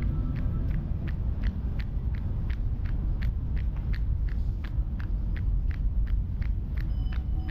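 Running footsteps at a steady cadence of about three a second, each footfall a short slap on pavement, over a steady low rumble.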